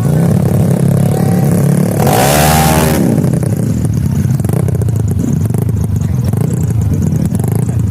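Motorcycle engines running, with a short burst of hard revving about two seconds in that dies away about a second later.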